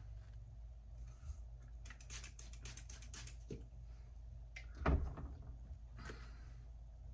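Quiet handling noises: scattered faint clicks and rustles, with a single louder knock about five seconds in, over a steady low hum.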